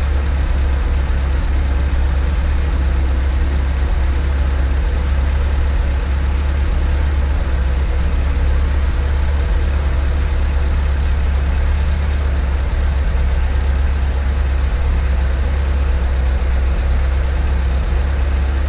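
1978 MGB's 1.8-litre four-cylinder engine idling steadily.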